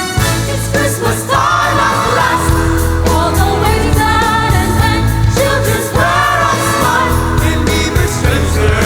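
Loud music with singing over a steady bass beat, in the style of a Christmas song.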